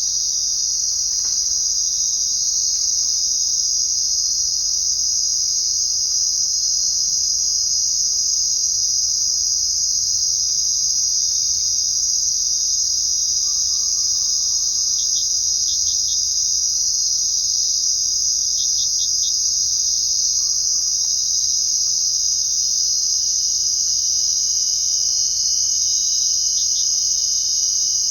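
Crickets chirping in a dense, unbroken chorus, with a few brief higher trills from other insects standing out now and then.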